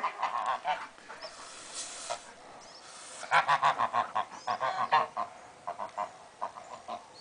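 White domestic geese honking in short calls, with a quick run of repeated honks about three seconds in and scattered calls after.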